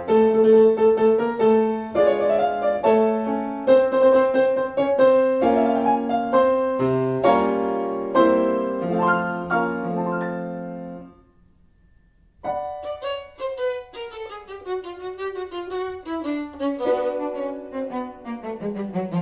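Instrumental film score, a violin playing over piano accompaniment. It stops about eleven seconds in and after a brief gap resumes with a new passage of quick rising and falling runs.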